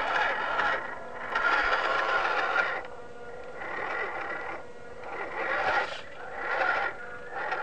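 Micro-scale RC crawler's small electric motor and gear train whining in several bursts as the throttle is worked, with the tyres scraping over loose gravel.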